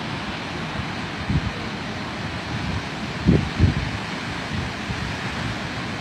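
Rough sea surf churning and washing against the rocks below, mixed with wind on the microphone; a few low thumps come about a second and a half in and again around three and a half seconds in.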